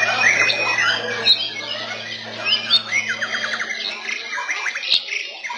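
Several caged white-rumped shamas (murai batu) singing at once: fast overlapping trills, whistles and chirps. A steady low hum underneath stops a little past halfway.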